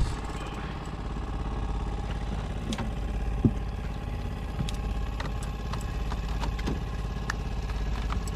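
A small engine idling steadily, with a few light knocks over it.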